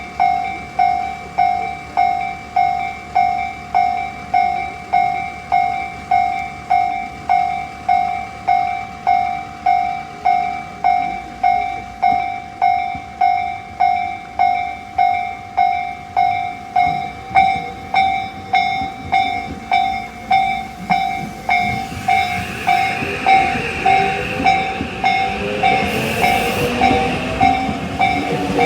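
Japanese level-crossing warning bell dinging steadily, a little more than once a second. In the last several seconds a Tobu Skytree Line train comes through, its running noise swelling under the continuing bell.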